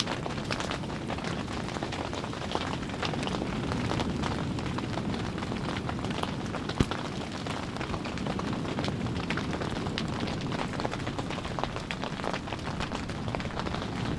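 Strong wind blowing in a steady low rush, with scattered small ticks throughout and one sharp click about seven seconds in.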